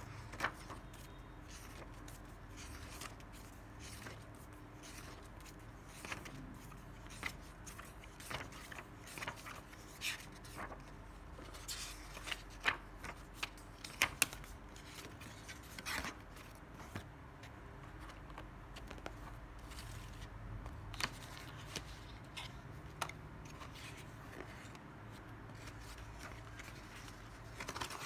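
Paper pages of a bound drawing book being turned by hand, one after another: soft rustles and crisp snaps of paper at irregular intervals, over a faint low hum.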